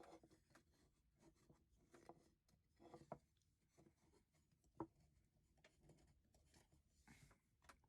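Near silence: room tone with a few faint, short clicks and knocks, and a brief faint rub near the end.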